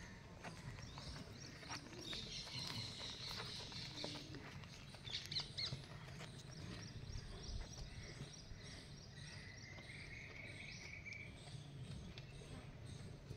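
Faint rural outdoor ambience with birds chirping now and then over a low steady background rumble, with a few small clicks.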